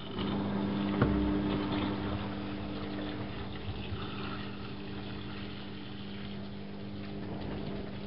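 Privileg Classic 30612 front-loading washing machine running mid-wash: a steady machine hum comes in just after the start, with a single knock about a second in, over water sloshing in the drum.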